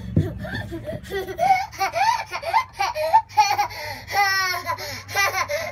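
A toddler laughing and squealing in a quick run of short, high-pitched bursts, with one longer squeal about two-thirds of the way through.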